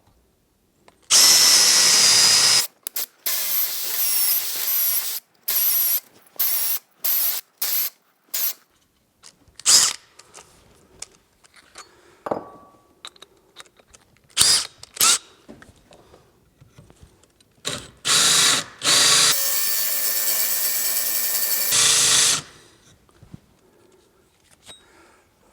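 Corded or cordless power drill driving a hole saw into a wood 2x4. It runs in a string of short trigger bursts, then a longer run of about three seconds near the end, cutting the plug partway through the board.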